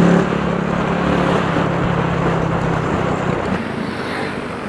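Motorcycle engine running at a steady cruise with wind rushing over the microphone; the engine note drops away about three and a half seconds in.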